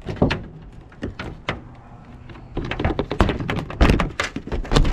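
A run of sharp knocks and scrapes, sparse at first and dense from about halfway, as a plastic RV roof vent is pried loose from its old silicone sealant and lifted off the trailer's metal roof.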